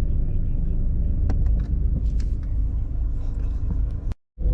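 Steady low road and engine rumble of a moving car, heard from inside, with a few faint clicks; the sound drops out for a moment near the end.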